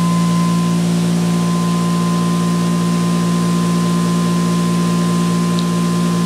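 ReGenX generator prototype and its electric prime mover running steadily at about 3,450 RPM on no load: a steady machine hum with a strong low tone and a fainter, thin high tone above it.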